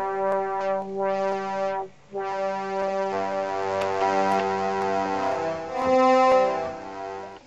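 Roland Juno-106 analog polysynth playing sustained chords, with a short break about two seconds in and the loudest chord around six seconds. It is running on a newly replaced 80017A voice chip and sounds as it should.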